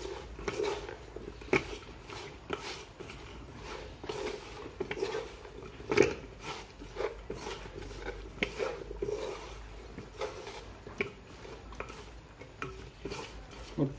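Cut tripe being mixed with spice powders in a vessel: soft wet squelching with irregular clinks and knocks against the vessel, the sharpest about six seconds in.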